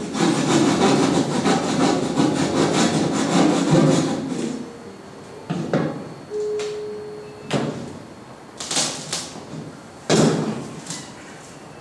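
Rough scraping and rubbing noises. A dense rasping texture runs for about the first four seconds, then gives way to separate swishing scrapes every second or two, with a brief held tone a little past the middle.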